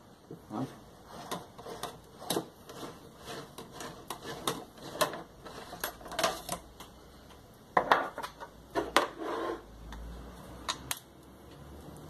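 White plastic washing-machine agitator clicking and knocking against its drive shaft and the table as it is wiggled loose and pulled off, after its screws have been backed out. A run of irregular sharp clicks, louder and closer together about two thirds of the way through.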